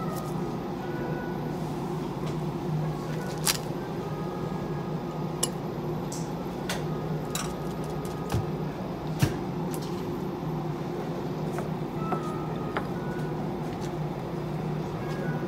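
Steady low mechanical hum with several short sharp clicks and taps of knife work as a fish is filleted.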